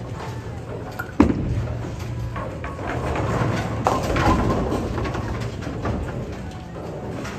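Bowling ball landing on the lane with a thud, rolling for a few seconds, then hitting the pins with a crash about four seconds in.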